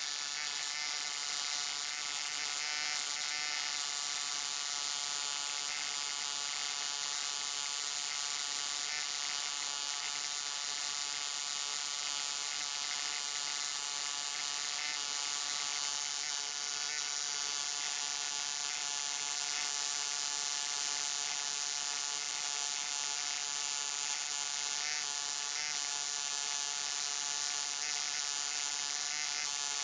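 Low-voltage electric arc buzzing steadily: a hum with many evenly spaced overtones under a constant crackling hiss.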